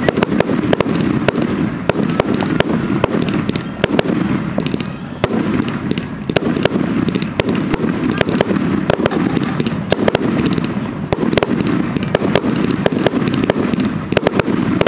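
Aerial fireworks going off in a rapid barrage: sharp bangs and pops, several a second, over a continuous rumble of bursts.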